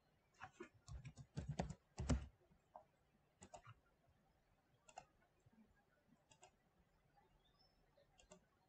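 Faint computer keyboard typing and mouse clicks: a quick run of keystrokes in the first couple of seconds, then scattered single clicks.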